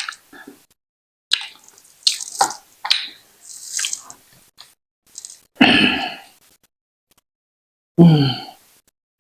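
Close eating sounds of fufu with sticky ogbono soup: a run of short wet smacks and squelches, a louder one about six seconds in, and a brief voiced sound falling in pitch near the end.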